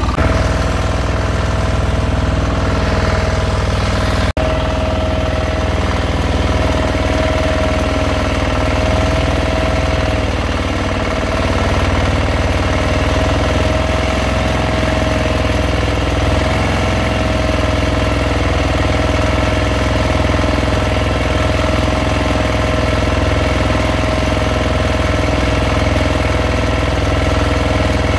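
Fishing boat's engine running steadily at constant speed, a continuous low rumble with a steady droning tone.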